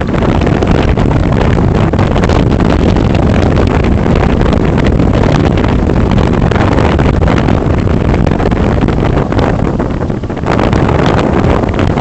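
Storm wind buffeting the microphone in a loud, steady rumble, over the noise of rough storm surf breaking against a harbour wall and shingle beach. The rumble dips briefly about ten seconds in, then comes back with more crackle.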